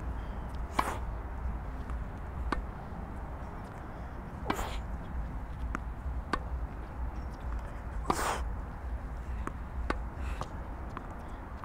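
Tennis rally drill: sharp pops of a tennis ball struck by racquets and bouncing on the court, one every one to two seconds, over a low steady rumble.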